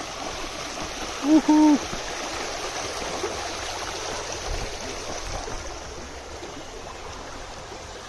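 Steady rush of flowing stream water. About a second and a half in comes a brief two-note voiced sound.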